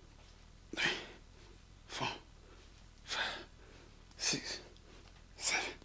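A man breathing out hard, five sharp hissing breaths about a second apart, one with each rep: exertion breathing while curling a 50-pound kettlebell.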